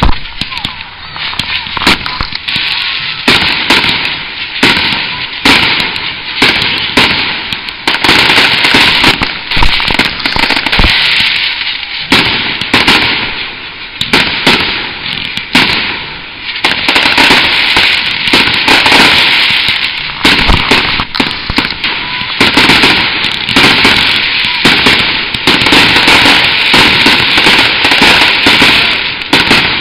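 Fireworks display: loud aerial shell bursts in quick succession, each bang trailed by crackle. Over the last dozen seconds they merge into a near-continuous barrage.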